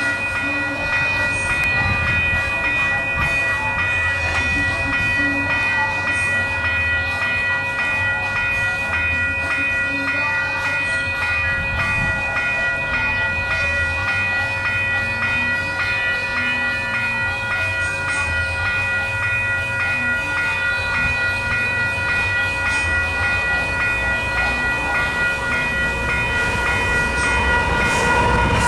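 Railroad crossing signal bells ringing in a fast, even repeating pattern over a low rumble from approaching diesel locomotives; the rumble grows louder near the end as the train nears the crossing.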